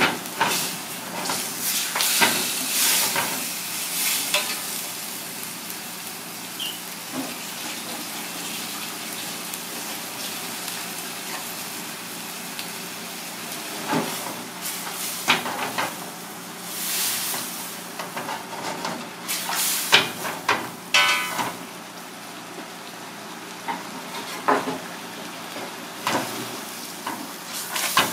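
Tiger prawns sizzling steadily in chili sauce in a wok over a gas burner, with long cooking chopsticks knocking and scraping against the pan as they are turned, a few times, including a quick rattle of taps about three quarters of the way through.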